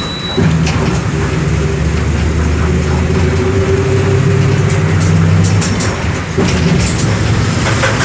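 MWM 6.12 TCE six-cylinder inline turbodiesel of a Volksbus 17-230 EOD city bus running under load as the bus drives. The engine sound dips briefly and comes back twice, near the start and about six seconds in.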